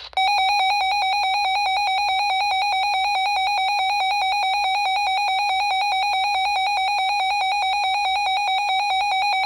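A weather radio's electronic alert alarm sounding for a received Severe Thunderstorm Warning. It is a loud, steady-pitched buzzing tone, rapidly pulsing, that starts abruptly and keeps going.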